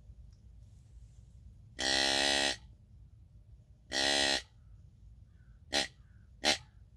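Mouth-blown adjustable deer grunt call set to a regular buck grunt: four horn-like grunts, two longer ones about two seconds apart, then two short ones near the end.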